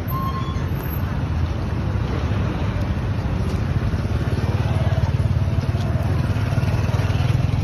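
Small motor scooter riding past close by, then a car approaching, over a steady low rumble of street traffic that gets louder from about halfway.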